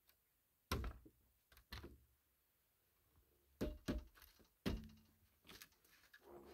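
Several dull thunks and knocks as the cab door of an old Karhu-Sisu truck is unlatched and swung open and someone climbs up into the cab.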